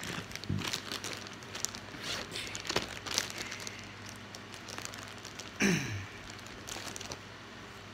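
Cards being handled by hand at a table: a run of light clicks and rustles, with one louder rush of noise about two-thirds of the way in.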